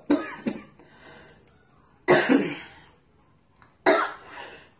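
A woman coughs twice, about two seconds apart: two short, sudden coughs.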